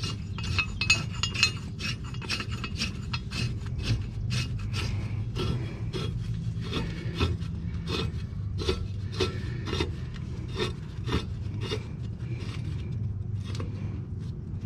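Mower blade bolt being turned by hand into the deck spindle: irregular light metal clicks and scraping as the bolt, washer and blade shift against each other, over a low steady hum.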